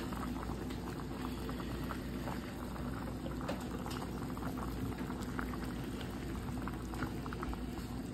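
A pot of sancocho stew at a rolling boil: steady bubbling with many small irregular pops.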